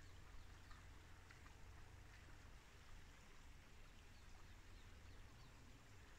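Near silence: faint outdoor ambience with a low rumble and a few faint, short, high ticks.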